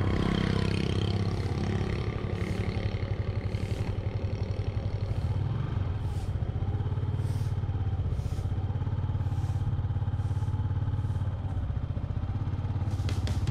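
Small motorbike engine running steadily at a cruise, heard from the rider's position while riding along.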